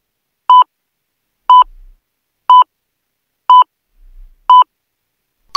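Electronic countdown-timer beeps: five short, identical beeps, one each second, marking the count from five down to one.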